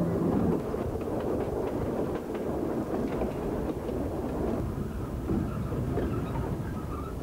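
Old train with wooden passenger carriages running along its track: a steady rumble with clicks of the wheels over the rail joints.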